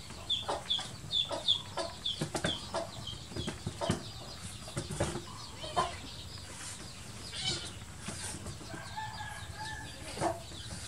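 A quick run of short, high, falling chirps, about three a second, over the first few seconds, mixed with sharp clicks and scuffles, then fainter scattered calls.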